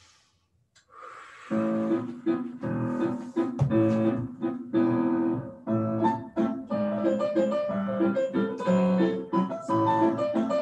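Piano music starts about a second and a half in and plays on as a steady run of notes.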